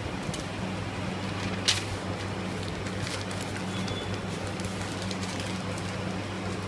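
A steady low electrical hum over constant background noise, with faint crackles of a paper wrapper being rolled around a wrap and one sharp click about two seconds in.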